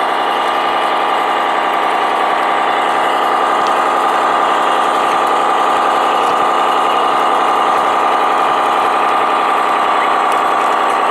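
Engine sound of a radio-controlled model construction machine idling steadily.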